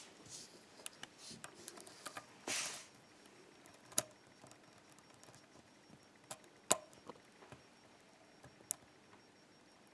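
Lock pick working the pins of an ASSA 5-pin oval pin-tumbler cylinder under light tension: faint ticking and a brief scrape of the pick, then a few sharp metallic clicks spaced two to three seconds apart, the kind a picker listens for as pins set or the core shifts.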